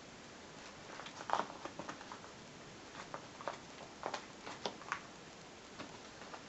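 Packaging of a small mail parcel being opened by hand, with irregular crackles and rustles.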